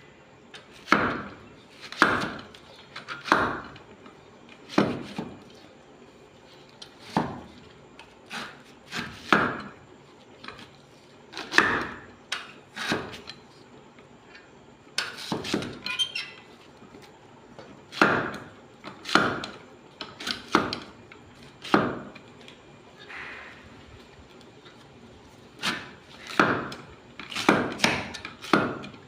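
Mangoes being chopped with a blade: sharp separate chops down onto a hard cutting surface, coming irregularly at roughly one a second with short pauses.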